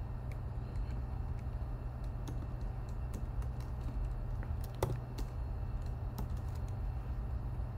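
Keystrokes on a computer keyboard as code is typed: a few scattered taps with pauses between them, over a steady low hum.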